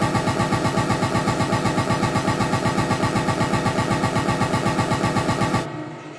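Synthesized imitation of an MRI scanner's gradient knocking, made with a music app: a loud buzz pulsing in a fast, even rhythm. It cuts off suddenly near the end, leaving a quieter, softly pulsing tone.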